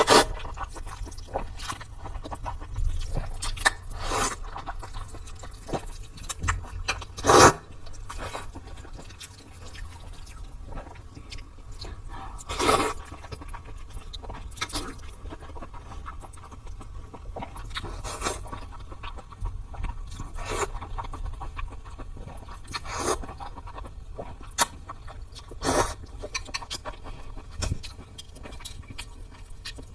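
Close-miked eating sounds of someone eating sesame-paste glass noodles: chewing, with sudden scrapes and clicks every second or few, a few of them longer and louder.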